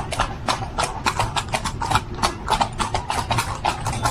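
Carriage horse's hooves clip-clopping on the road, a steady beat of about four hoof strikes a second, over a low rumble of the moving carriage.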